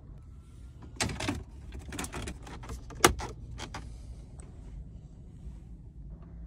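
Hand-handling noises around a car's dashboard radio: a run of clicks, taps and crackly rustles lasting about three seconds, with the sharpest click about three seconds in, over a low steady rumble.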